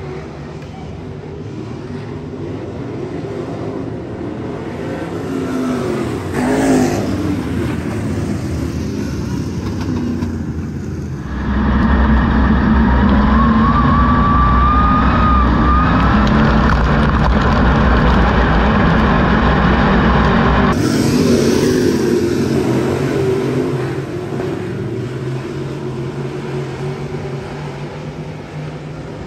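Dirt-track stock car engines heard from the grandstand as the cars run around the oval. For about nine seconds in the middle the sound switches to inside one of the cars, where its own engine is much louder and heavier, with a whine that rises in pitch partway through.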